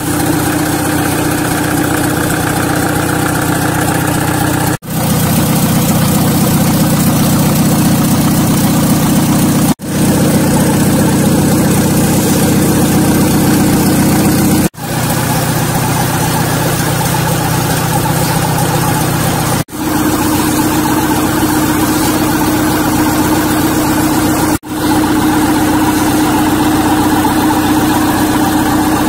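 Isuzu 4JB1 four-cylinder diesel engine running steadily on a bench test stand. The sound breaks off briefly about every five seconds.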